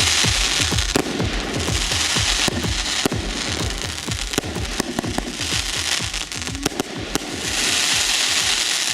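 Consumer fireworks going off: a rapid, irregular string of bangs and crackling, with stretches of hissing, over background music with a steady beat.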